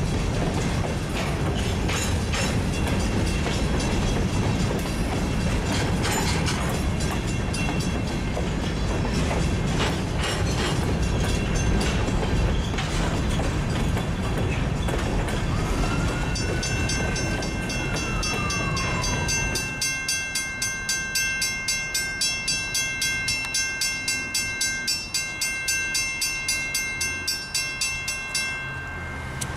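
Freight train of covered hopper cars rolling over a grade crossing, a steady rumble with clicking wheels that ends about two-thirds of the way in. A brief tone rises and falls just before the train clears. After that the grade-crossing bell rings alone, about twice a second, and it stops near the end.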